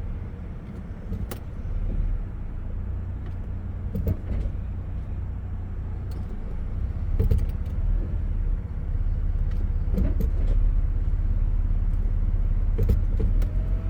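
A 1997 Lexus LX 450's straight-six idling steadily, with a sharp clunk every three seconds or so, some doubled, as the automatic transmission is shifted between reverse and drive.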